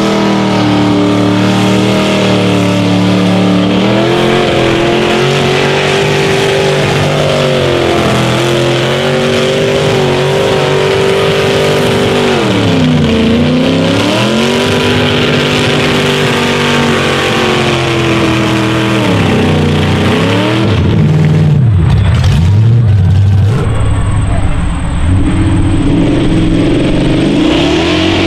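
Mud truck engine running hard at high revs as the truck churns through a mud pit. The pitch falls and climbs back twice as the revs drop and pick up again. About three-quarters of the way through comes a louder, rougher stretch.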